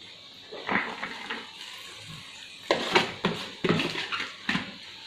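Chopped chayote being tipped from a plastic bowl into a wok of boiling broth, with sharp knocks and clatters of bowl and spoon against the wok: one about a second in, then a quick string of them in the second half.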